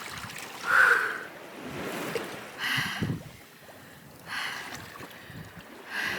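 Sea water splashing and sloshing in short bursts, about one every second and a half to two seconds, as a person wades out of the ocean.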